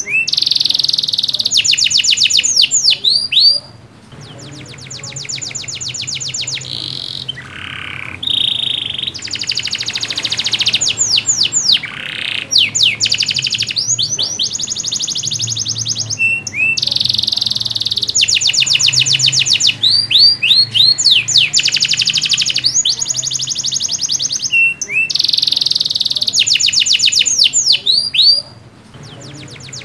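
Domestic canary in full song: loud, rapid rolling trills alternating with quick rising whistled sweeps and a few held notes, phrase after phrase, with a short break about four seconds in and another near the end.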